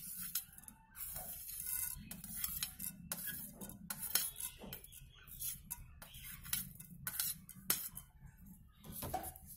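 Cumin and fenugreek seeds sizzling in hot oil in a frying pan, with irregular small pops and crackles throughout as the seeds begin to roast.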